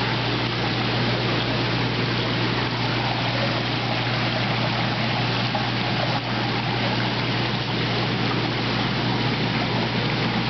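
Koi pond water rushing steadily, with a low steady hum beneath it.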